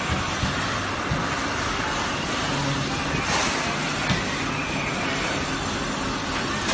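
Steady factory noise of assembly-line machinery running, with a brief hiss about three and a half seconds in and a faint low hum through the middle.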